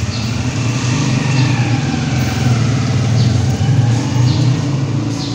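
A motor vehicle engine running steadily, getting louder about a second in.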